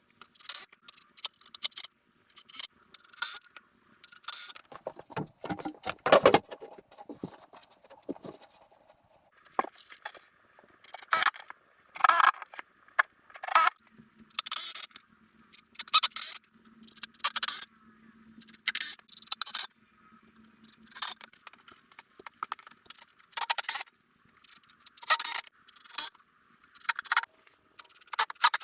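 Repeated short scraping strokes on wood, about one every second or so, with brief quiet gaps between them.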